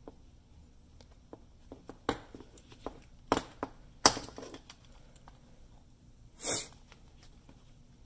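Handling sounds of a hand sewing awl and a leather belt: a few scattered clicks and taps as the metal awl and waxed thread are worked through the stitch, with a short hiss about six and a half seconds in.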